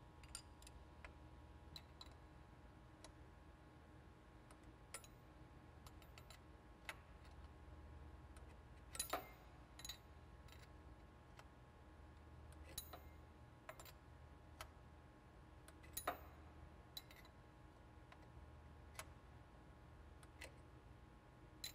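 Faint, irregular metallic clicks of wrenches on a B-nut fitting of an oil manifold tube, one wrench held on the fitting as a backup while the other turns the nut, over a low steady hum. The sharpest clicks come about a third of the way in and again past the middle.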